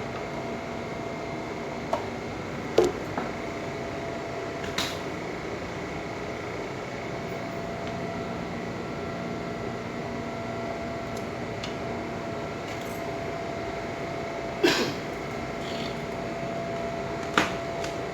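Steady background hum with a few steady faint tones in it, broken by a handful of short light clicks and knocks spread through the stretch.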